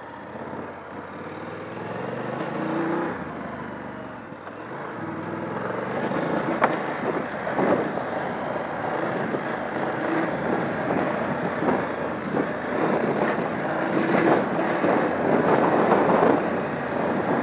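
BMW F 850 GS Adventure's parallel-twin engine running at low revs while riding over rough gravel. About six seconds in the ride gets louder and rougher, with knocks and rattles from bumps.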